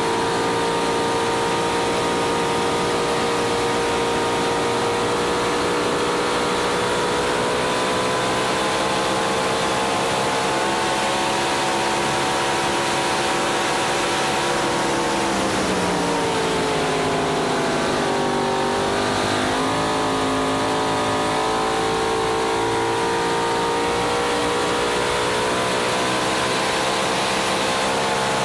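Racing boat's engine running hard at high speed, heard from on board over a steady rush of wind and water. Its pitch sags for a few seconds about halfway through, then climbs back.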